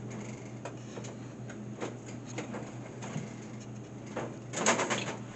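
Light clicks and knocks of a vending machine's bottom tray being handled and set back into place, with a quick cluster of rattling clicks near the end, over a steady low hum.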